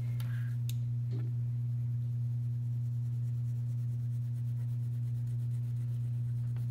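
A steady low electrical hum at one pitch, with a fainter overtone an octave above it.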